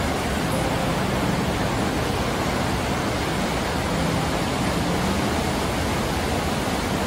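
River rapids: water rushing over rocks in a steady, unbroken rush.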